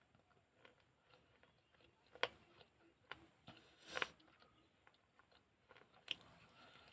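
Teeth biting and crunching pieces of broken baked-clay pot (matki), three sharp crunches about two seconds apart with faint chewing clicks between them.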